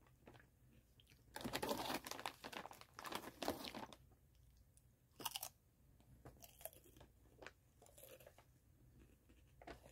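Popped veggie and potato chips being bitten and chewed: a run of loud, dense crunching for about two and a half seconds, then scattered shorter crunches.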